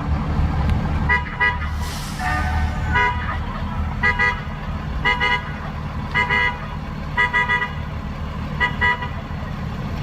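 Short honks, often in pairs, repeating about once a second over a steady low rumble.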